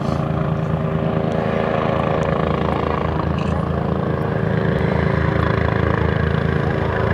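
Airbus EC145 twin-turbine helicopter flying low overhead on its approach to land: a steady, rapid rotor chop over an even turbine hum.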